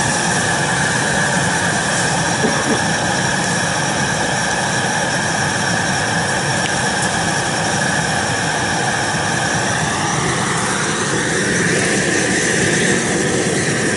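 Propane gas torch burner running with a steady, loud hiss. Its sound changes about ten seconds in.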